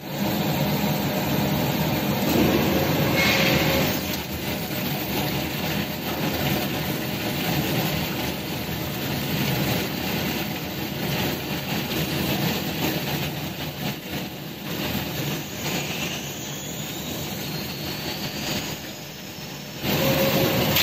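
Induction hardening rig running steadily while a large steel gear heats to red-hot in the copper coil, with a faint rising whine in the later part. About a second before the end the noise jumps suddenly louder.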